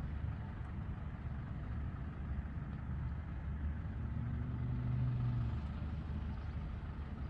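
Low, steady rumble of distant road traffic, with one vehicle's engine hum standing out for a couple of seconds about four seconds in.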